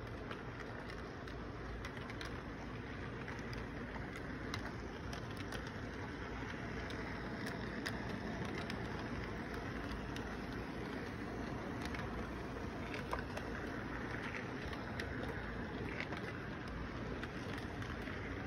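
Electric model train running on its track: a steady rumble of motor and wheels with scattered small clicks, a little louder from about halfway as the train comes close.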